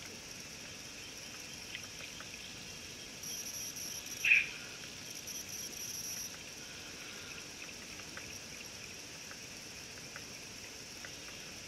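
Steady, high-pitched chirring of insects at a waterhole, swelling and pulsing for about three seconds partway through. A single short, sharp chirp about four seconds in is the loudest sound, with faint scattered ticks around it.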